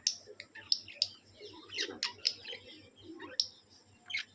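A small bird giving quick, sharp chirps, a dozen or so short notes in an uneven series.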